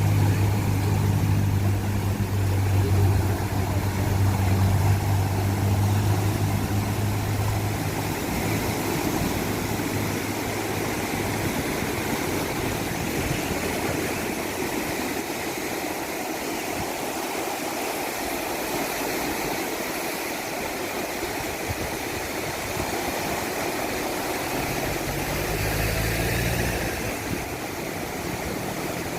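Strong surf breaking and washing on a beach, an even rushing wash throughout. A motor's steady drone sits under it for about the first third, fades out, and comes back briefly near the end.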